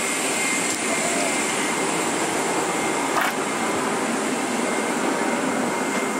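Steady rushing hiss of a Boeing 777-300ER cabin's air-conditioning airflow, with a faint high whine held steady through it.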